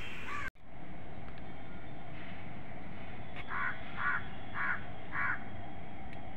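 A crow cawing four times in quick succession over steady background noise.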